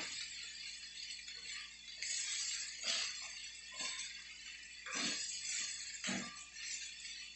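A spatula scraping and knocking against a stainless steel wok as vegetables and chicken are stir-fried, over a steady sizzle. About five louder scrapes come at uneven intervals.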